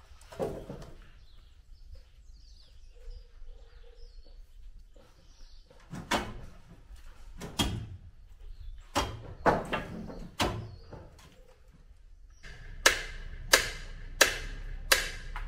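Formwork being stripped from a concrete slab: irregular knocks and hammer blows on the shuttering timber. About two-thirds in comes a run of four sharp, evenly spaced ringing strikes, the loudest sounds.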